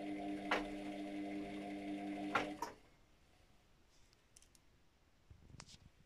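Luxor WM 1042 front-loading washing machine's drum motor humming as it turns the wet laundry in a 40°C cotton wash, with two sharp knocks. About two and a half seconds in the motor cuts off and the drum rests, leaving near silence with a few faint clicks and a small thump near the end.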